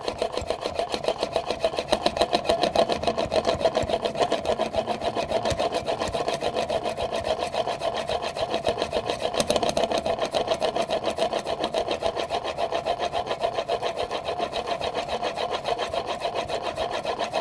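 Steel plane iron in a honing guide being rubbed back and forth on an extra-fine diamond sharpening stone: a steady, rhythmic rasping scrape of quick, even strokes without a break. It is the honing of the iron's secondary bevel on the finest grit.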